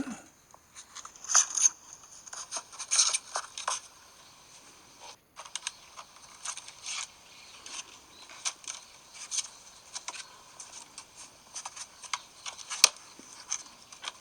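iPhone speaker giving out an irregular run of scratchy crackles, scrapes and clicks, a glitch noise of unknown cause that will not stop. There is a brief gap about five seconds in and a sharp click near the end.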